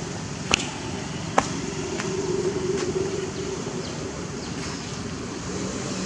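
Steady outdoor background rush with a faint hum swelling around the middle. Two sharp clicks come within the first second and a half.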